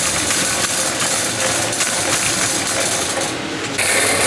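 Metal shopping cart rattling as it is pushed along, a steady dense clatter that eases briefly about three and a half seconds in.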